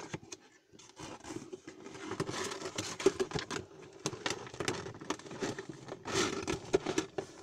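Cardboard figure box being handled as its top flap is pried open: a busy run of scraping and crinkling with many sharp little clicks and taps, starting about a second in.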